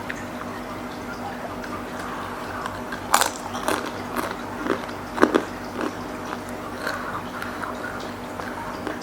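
Close-up eating sounds of a spicy seblak meal: a person biting and chewing, with a run of sharp, wet mouth smacks and bites between about three and five and a half seconds in.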